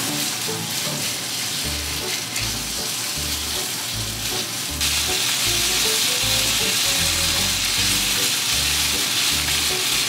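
Thinly sliced pork sizzling as it fries in a frying pan, stirred with chopsticks. The sizzle gets louder about five seconds in.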